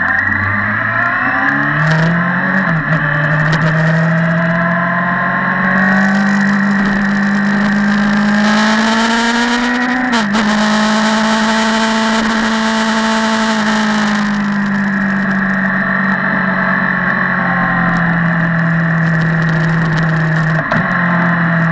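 Motorcycle engine heard from on board while riding: its note climbs steadily as it accelerates, dips briefly about ten seconds in, then settles and slowly falls as the rider eases off. Wind rushes over the microphone while the bike is at speed in the middle of the stretch.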